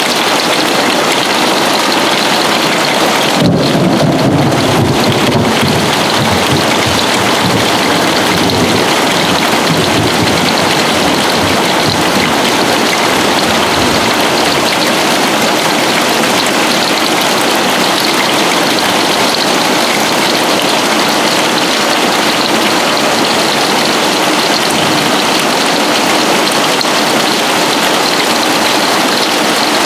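Heavy hail pounding down on a roof and the ground, a dense, steady clatter. About three seconds in, a rumble of thunder breaks in and slowly dies away over several seconds.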